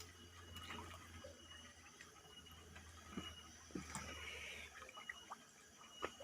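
Near silence: faint background with a steady low hum and a few scattered faint ticks.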